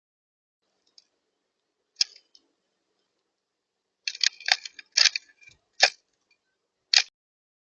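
A scattered series of sharp taps and clicks on a bird feeder, single knocks with a quick cluster of them in the middle, as birds peck and land on it.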